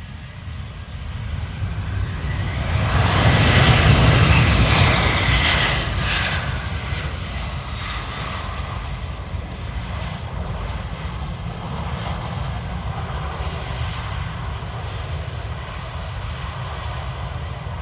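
Airbus A320 jet engines as the airliner lands past, rising to their loudest about four seconds in, then easing to a steady engine noise.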